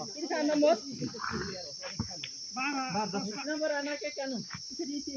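A steady, high-pitched chorus of crickets trilling without a break, with indistinct voices talking over it.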